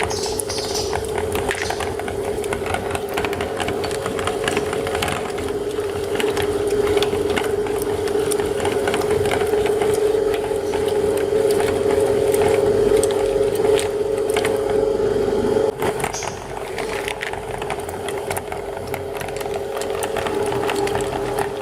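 Electric meat grinder motor running with a steady hum, with constant crackling and crunching as chocolate candy is ground. About two-thirds of the way through, the motor briefly drops in pitch and level under load, then picks back up.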